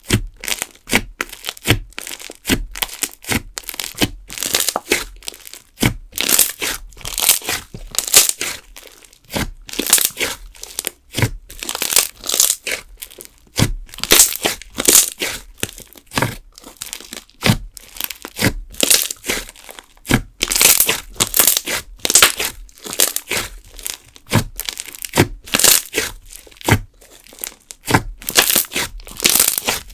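Fingers poking, pinching and pressing foamy slime in a jar, giving a quick, irregular run of crackles that come in clusters with short pauses between.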